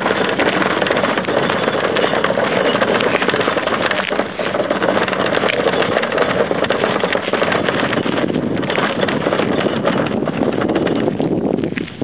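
Plastic wheelie bin rolled on its two hard wheels over a gravel driveway: a loud, steady rattling rumble that eases near the end.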